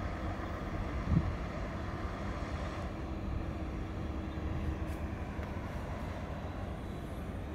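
Boeing 787-9 jet engines running as the airliner taxis: a steady low rumble and hiss. There is one brief low thump about a second in.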